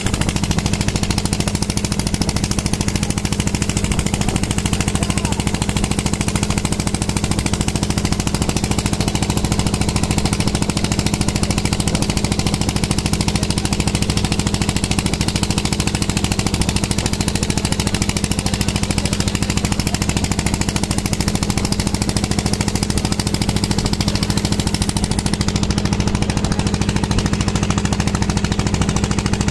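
Boat engine running steadily: a loud low hum with a fast, even pulse.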